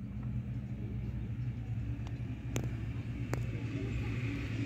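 Steady low rumble with a hum, like distant traffic or machinery, and two sharp clicks a little past halfway, under a second apart.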